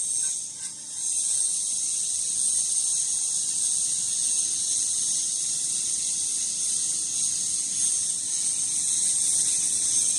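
A steady high-pitched buzzing hiss, dipping briefly about half a second in.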